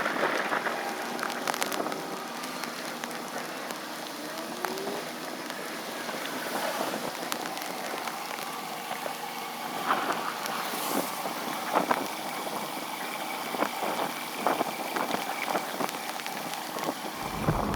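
Steady hiss of water, with scattered clicks and crackles throughout.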